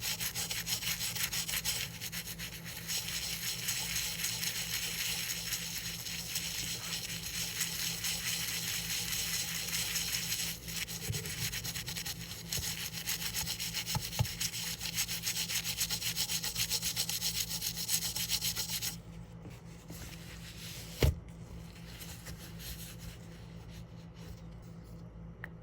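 Rapid scrubbing strokes rubbing at the surface of a penny during cleaning, a dense rasping texture that stops about three-quarters of the way through. A single sharp knock follows a couple of seconds later.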